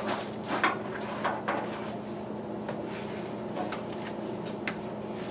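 Parts and tools being handled in a truck cab: a flurry of scrapes and knocks in the first two seconds, then a few scattered sharp clicks, over a steady low hum.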